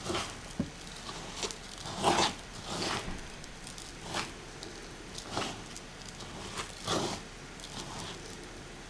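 Hands rubbing and raking couscous grains in a wooden bowl, breaking up lumps: a gritty rustle in irregular swishes about once a second.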